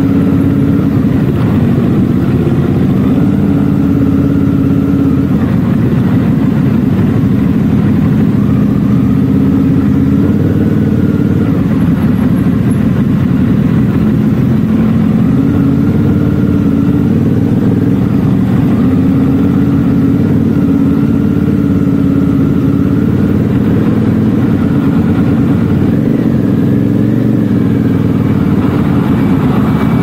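Motorcycle engine running at low road speed heard from the bike itself, its note shifting up and down every few seconds as the throttle changes, over a steady rumble of road and wind noise.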